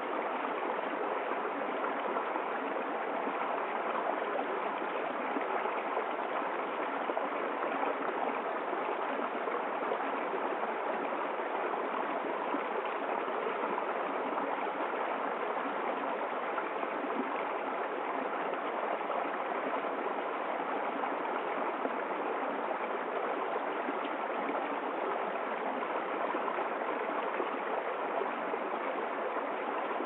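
Small woodland stream splashing down a low cascade over rocks: a steady, even rush of running water.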